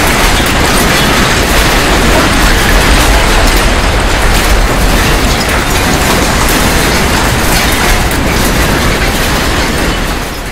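Simulated earthquake shaking: a loud, continuous rumble with rattling, heaviest in the deep bass, fading away near the end.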